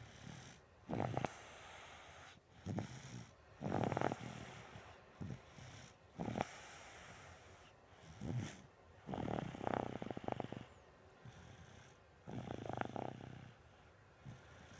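Snoring: a fluttering, rattling snore every two to three seconds, some long and loud, some short.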